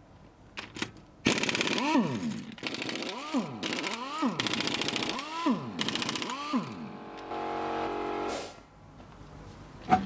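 A handheld power tool run in five short bursts, its motor winding up and back down in pitch each time with a fast rattle, then running steadily for about a second before stopping; a single sharp click comes near the end.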